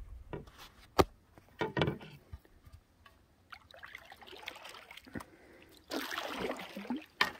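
Canoe paddling: water splashing and trickling off a wooden paddle as it is stroked and lifted, with the biggest splash near the end. Between the strokes come a few sharp knocks, the loudest about a second in.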